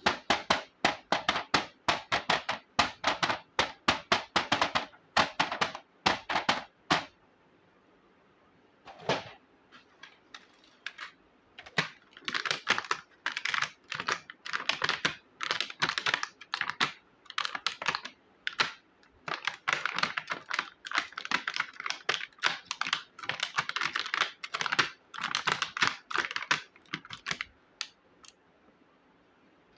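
Small plastic toy kitchen pieces being handled, in quick runs of light clicking and clattering that stop for a couple of seconds near the middle.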